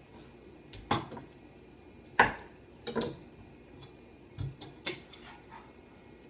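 Metal clinks and knocks from handling a sturdy metal potato ricer and a kitchen knife while ricing baked potatoes: a few separate sharp knocks, the loudest a little past two seconds in, and a duller thud about four seconds in.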